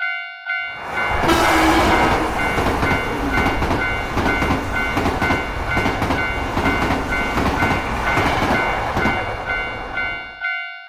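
Japanese railroad crossing bell ringing steadily at about two strokes a second. A train passes through the crossing from about a second in until near the end, a loud rushing rumble with a rhythmic clatter over the rails.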